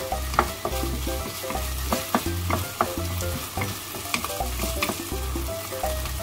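Wooden spatula scraping and knocking against a black frying pan as sizzling cooked chicken and cheese is pushed out of it, with repeated sharp clicks.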